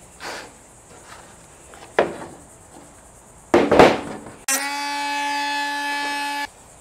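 Cut plastic cooler lid being broken apart by hand: a sharp snap, then a louder crackling burst as the cut-out piece comes away. This is followed by a steady squeal about two seconds long that starts and cuts off abruptly.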